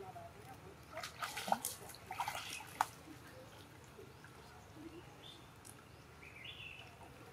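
Water splashing and dripping as young macaques play in a shallow pool. There is a quick cluster of splashes and spatters in the first few seconds, then it goes quieter with a couple of faint short chirps.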